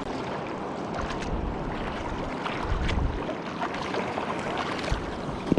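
Rushing river rapids: a steady hiss of moving water, with wind buffeting the microphone in low rumbles about a second in and again near the three-second mark.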